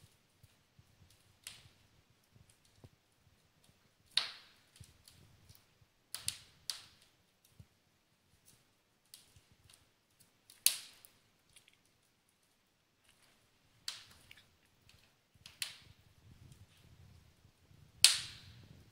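Burning fire in the fireplace crackling, with sharp, irregular pops a few seconds apart; the loudest comes near the end.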